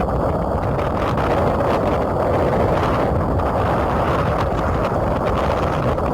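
Strong storm wind buffeting the microphone: a loud, steady rumbling rush with no pauses.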